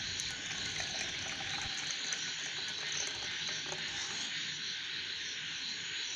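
Hot herbal kadha being poured from the saucepan through a strainer, liquid trickling and splashing, over a steady high hiss.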